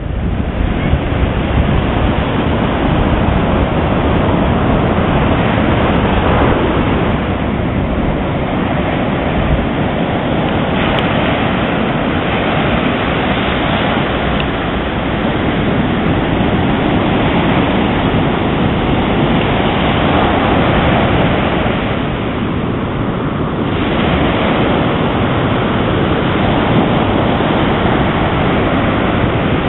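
Ocean surf breaking and washing up a sandy beach: a steady rush of water noise that eases slightly about three quarters of the way through.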